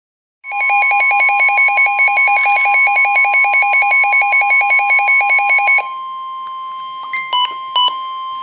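NOAA Weather Radio warning alarm tone, one steady tone, starting about half a second in; it signals that a warning message is about to be broadcast. For its first five seconds a loud, rapidly pulsing electronic alarm beeps over it, and a few short separate beeps come near the end.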